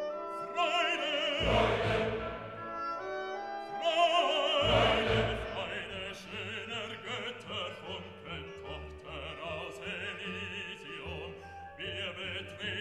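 Background music: operatic singing with vibrato over an orchestra, with deep bass swells about a second and a half and four and a half seconds in.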